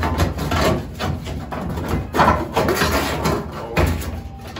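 A loose sheet-metal replacement sail panel being pressed, shifted and knocked against a car's rusted roof pillar during a test fit: irregular bumps and rubbing of thin steel.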